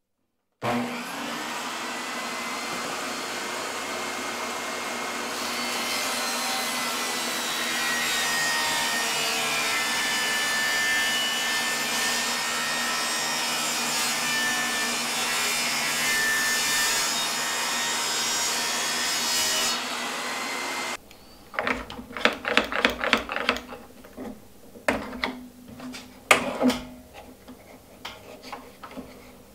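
Ryobi 10-inch 15-amp table saw starting up and running with a steady motor whine, cutting a sheet of plywood. It stops abruptly about two-thirds of the way through, followed by scattered clicks and knocks.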